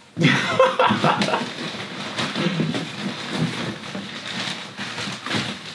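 Cardboard box and paper packing rustling and crinkling as they are handled.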